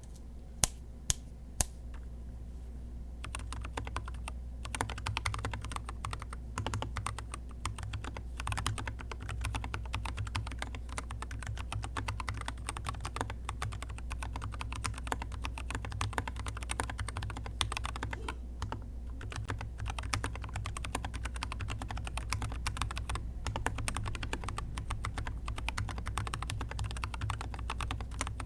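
Typing on a GK64 mechanical keyboard with Zealios v2 stems in Glorious Panda switch housings, PBT XDA-profile keycaps, a plastic case and an aluminium plate. Three single keystrokes come first, then steady, fast typing from about three seconds in, over a low steady hum.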